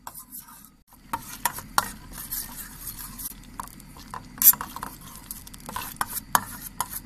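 Eggplant frying in oil in a pan, sizzling steadily, while a utensil stirs it and clicks and scrapes against the pan, with one sharp clack about four and a half seconds in.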